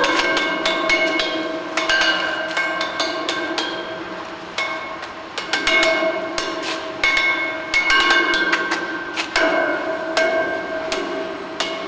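A stick run along the vertical bars of a metal railing: rapid series of metallic clacks, each run lasting a second or two and repeated about five times, with the struck bars ringing on in several tones.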